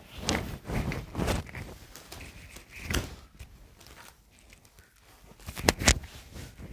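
Fabric rustling as a light pink chinon dupatta is unfolded and shaken out by hand: a series of soft rustles, then two sharper flaps of the cloth near the end.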